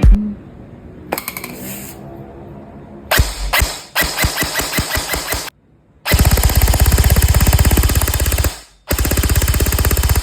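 Airsoft AEG rifle firing on full auto: a few short bursts, then two long bursts of two to three seconds each with a brief pause between them.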